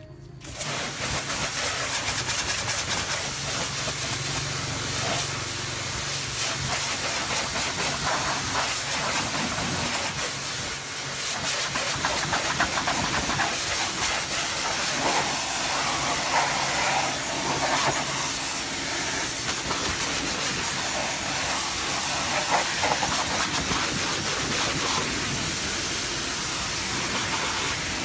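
High-pressure washer jet through a 25-degree nozzle hissing steadily as it blasts water onto a motorbike's wheel and underside. The washer's electric motor hums low underneath and runs only while the trigger is held. The spray starts about half a second in.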